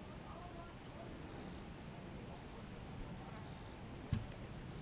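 Steady high-pitched chorus of crickets, with a soft thump about four seconds in.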